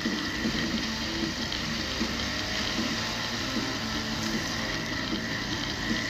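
Steady rushing noise of small waves washing onto a sandy beach, mixed with the noise of a vehicle driving along the wet sand at the water's edge.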